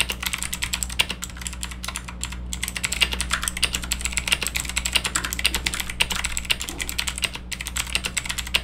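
Fast typing on an Aula Solakaka SK961 compact mechanical keyboard: a continuous rapid clatter of key clicks, many strokes a second.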